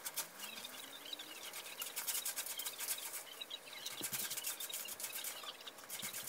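Ice cubes in a glass of iced coffee clinking and crackling as the glass is lifted and set down: a rapid, scratchy run of small clicks.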